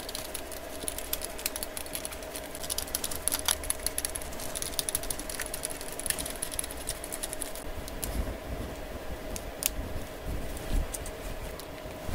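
Rapid small clicks and ticks of a precision screwdriver working the tiny screws out of a Samsung Galaxy S22 Ultra's inner frame. The clicks thin out after about eight seconds, leaving a few soft knocks as the phone is handled.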